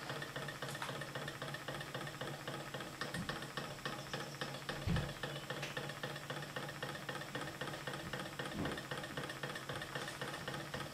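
MM-5 coffee-cup Stirling engine running at about 240 RPM on a cup of boiling water with ice on its top plate, its crankshaft and propeller ticking rapidly over a steady low hum. A single dull thump about five seconds in.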